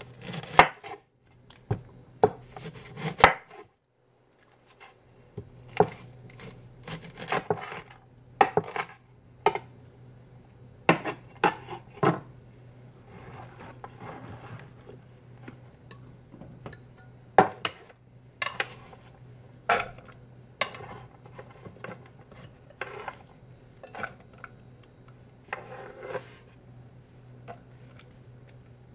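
Chef's knife chopping an onion on a wooden cutting board: irregular sharp knocks of the blade on the board, with a few scraping sounds. A faint steady hum underneath; near the end the chopped onion is swept into a frying pan.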